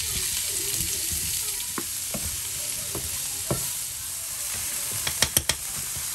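Sliced bell peppers and onion sizzling steadily in a hot frying pan as they are tipped in and stirred with a wooden spoon. A few knocks come in the first half, and a quick cluster of sharp clicks a little after five seconds.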